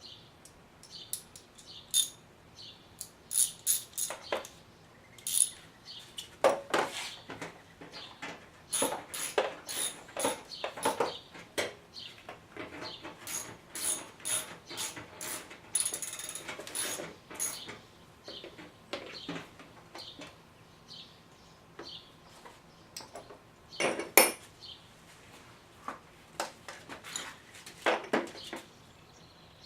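Irregular metallic clicks, clinks and knocks, as of metal tools or parts being handled, coming in clusters with a sharp, loud knock about 24 seconds in.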